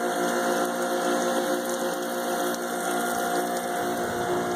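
Karcher 1900 psi electric pressure washer running, its motor and pump giving a steady hum of several tones over the hiss of spray. It is spraying soap through the soap nozzle, which puts out not a lot of pressure.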